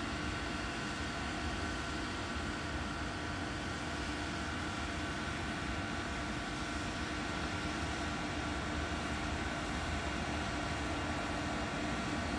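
CAF Urbos 100 light rail tram approaching: a steady electric hum and rolling rumble that grows slightly louder toward the end.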